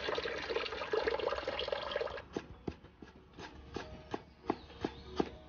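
Water running from a tap for about two seconds, then it stops and a cleaver chops ginger on a wooden chopping board in steady knocks, about three a second.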